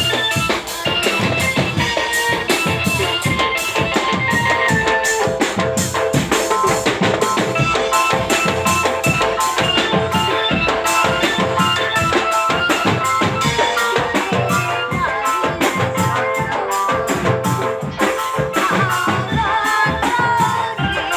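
Dramben drum-band music: a steady, fast beat on drums with a melody line played over it.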